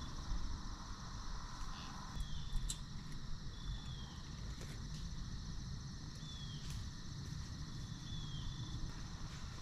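Evening woodland ambience: a steady high chorus of crickets, with a thin high call repeated about every second and a half, each a short level note ending in a downward flick. A few light clicks come through, the loudest about two and a half seconds in.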